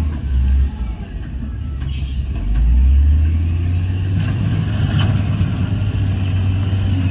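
Heavy diesel earthmoving machine running under load with a low, steady engine drone. The drone eases off about a second in and comes back louder about two and a half seconds in. A short sharp clank sounds near two seconds.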